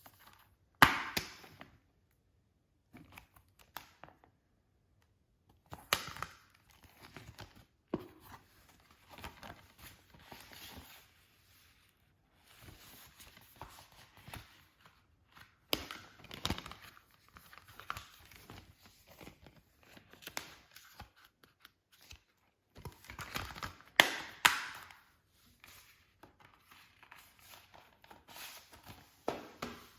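Disc-release packaging being handled and unwrapped: rustling and crinkling in irregular bursts, broken by several sharp clicks and knocks, with short quiet gaps between.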